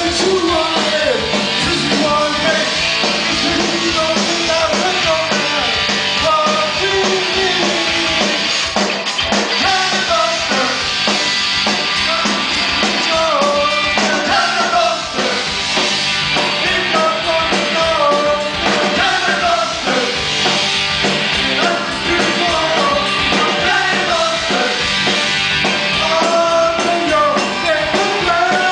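Punk rock band playing live at full volume: electric guitars, bass and drums under a sung lead vocal.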